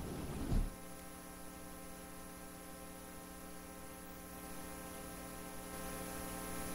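Steady electrical mains hum from the sound system, made of several even tones, with a brief rustle in the first second.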